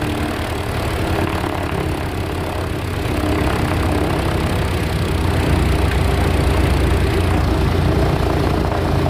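Boeing B-17's nine-cylinder Wright Cyclone radial engines idling with a steady low rumble, heard from inside the bomber's fuselage. The sound swells slightly about three seconds in.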